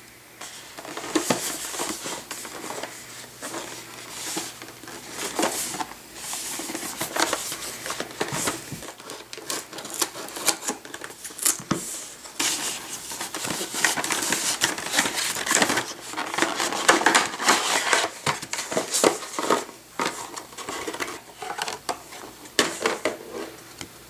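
Scissors snipping and plastic packaging crinkling and rustling as a card-game deck box is opened by hand, with many irregular clicks and knocks of stiff clear plastic and cardboard.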